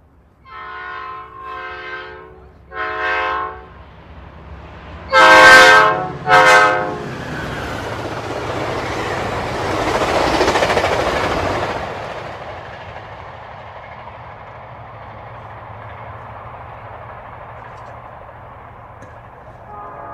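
Commuter train horn sounding three blasts, then two much louder blasts as the train comes closer. The rushing rumble of the train then builds, peaks about halfway through and eases to a steady lower rumble. The horn starts again at the very end.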